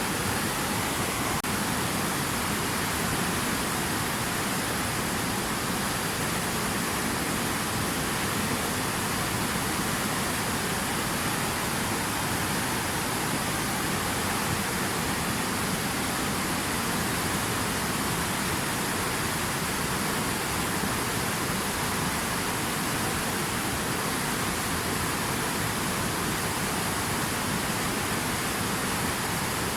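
Water rushing steadily, an even unbroken noise.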